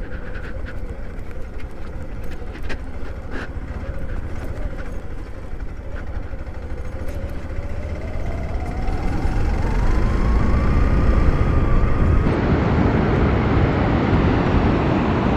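A Hero XPulse motorcycle being ridden, its engine and wind rushing over the rider's microphone, with scattered clicks and rattles in the first few seconds. About halfway through, the engine note climbs steadily for a few seconds as the bike accelerates. Near the end the sound jumps abruptly to a louder, steadier rush of engine and wind.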